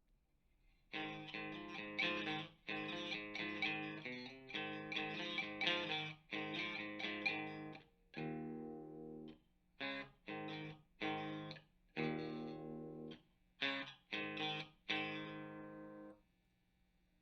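Electric guitar played through an amp and speaker cabinet with some distortion: a series of chord strikes and short stabs with brief gaps, starting about a second in and ending on a chord left to ring out.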